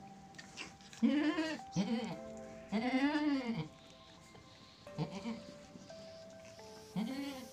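A goat bleating about five times, the longest call near the middle, over background music with long held notes.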